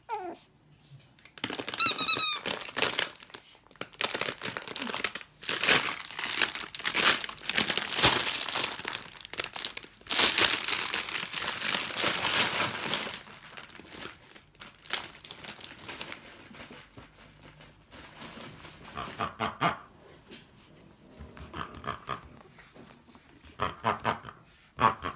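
A dog's squeaky toy gives a quick run of high squeaks about two seconds in. About ten seconds of rustling and crinkling follow, then scattered short sounds near the end.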